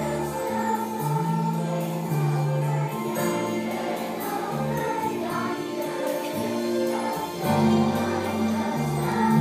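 Children's choir singing together to an instrumental accompaniment with held bass notes.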